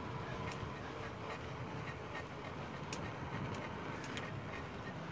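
Riding noise of a KBO Breeze e-bike at about 17 to 20 mph: a steady rush of tyres and wind, with a faint steady tone and scattered light clicks.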